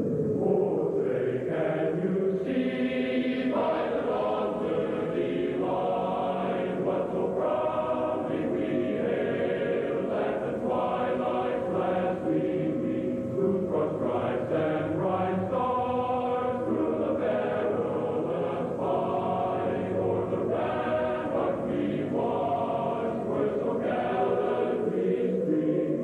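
Choral music: a choir singing in slow, chant-like held notes that change about every second, with a rising glide near the end.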